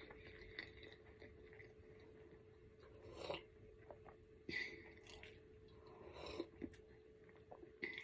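Faint mouth sounds of a person drinking from a tumbler: a few soft sips and swallows spaced a second or so apart, over a faint steady hum.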